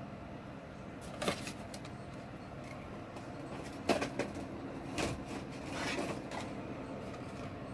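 Hard plastic action-figure parts handled in the hands: a small toy shield being turned and fitted, with a few light clicks and rubs about one, four and five seconds in, over a low steady hum.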